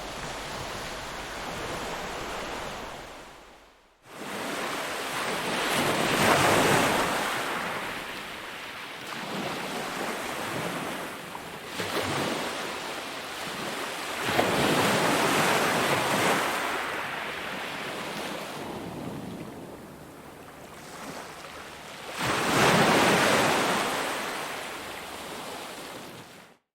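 Ocean waves breaking on a shore: a steady rush of surf that fades out about four seconds in, then three waves swelling and washing back, each about eight seconds apart.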